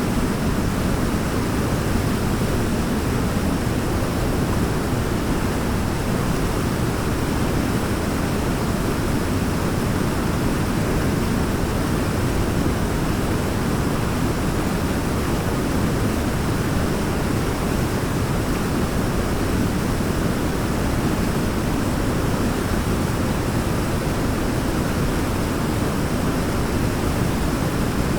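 Waterfall: water pouring and splashing in a steady, even rush, deepest in the low end.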